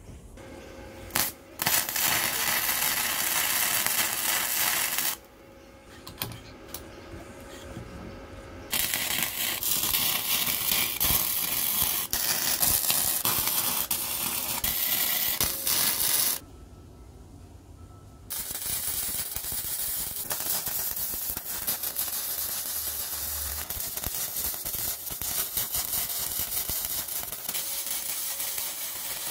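Electric arc welding on steel, the arc crackling and hissing in runs: a brief strike near the start, a run of about three seconds, a longer one of about eight seconds, and a steady run over the last ten seconds, with quiet gaps between.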